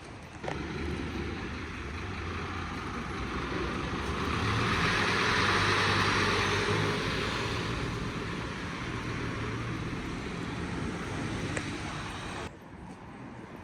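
Road traffic: a vehicle goes by, its rushing tyre noise swelling to a peak about halfway and then fading, over a low engine hum. The sound starts and stops abruptly.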